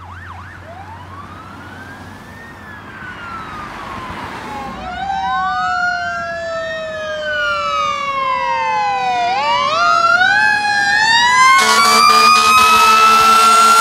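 Fire engine approaching with its sirens on: overlapping wailing sweeps that rise and fall, getting steadily louder as it nears. About two-thirds through, a low horn starts blaring in pulses while another siren climbs in pitch and holds high.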